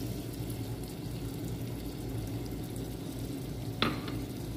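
Butter melting in hot cooking oil in a pot, giving a faint, steady sizzle, with one short knock near the end.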